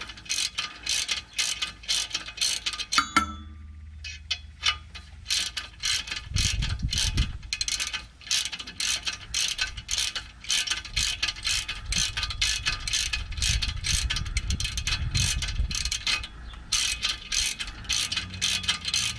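Craftsman hand ratchet clicking in steady repeated strokes, about three clicks a second, as it backs a 12 mm by 1.25 metric tap out of the exhaust flange's freshly chased threads. The clicking pauses for about two seconds near the start and briefly once more later.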